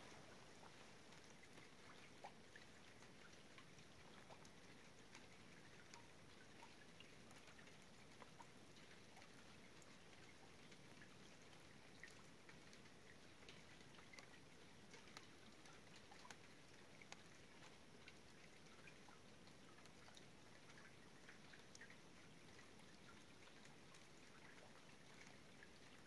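Faint scattered drips and light patter of falling water drops over a soft steady hiss, with no rhythm.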